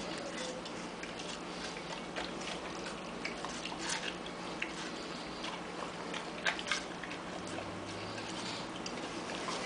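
A large dog biting and chewing a watermelon slice held out by hand: scattered wet crunches as its teeth work the flesh and rind. The strongest bites come a little before the middle and about two-thirds through.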